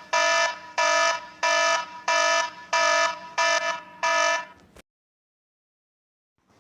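Electronic alarm buzzer beeping in an even run, about one and a half beeps a second, each beep a steady tone, stopping about four and a half seconds in.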